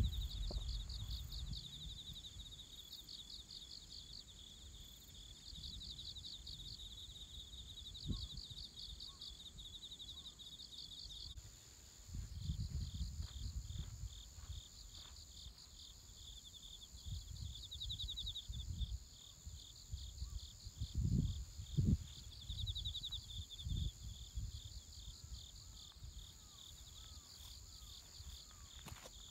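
Crickets and other insects chirring in rapid pulsed trills over a continuous high-pitched drone.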